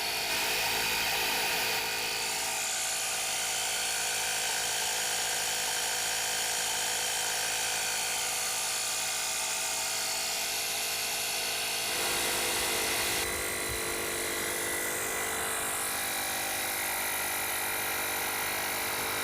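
A 12-volt portable tire-inflator air compressor running steadily with a buzzing motor hum while it pumps up a low car tire. Its tone changes slightly about two-thirds of the way through.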